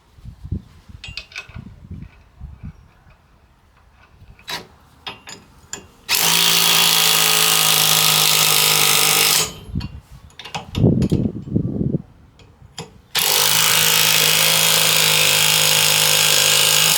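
A handheld power driver fitted with a socket runs twice, first for about three seconds and then for about four, spinning nuts down onto the towbar mounting bolts so they are snug but not yet torqued. Small knocks and clicks of handling the nuts and tool come before and between the runs.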